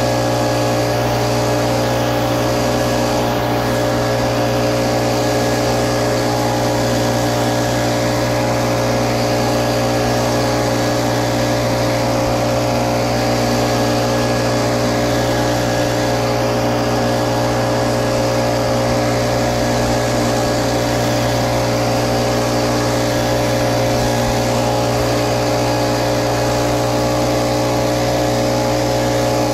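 Little Wonder Optimax walk-behind blower running steadily: an even engine hum under a constant rush of air from the fan, with no change in speed.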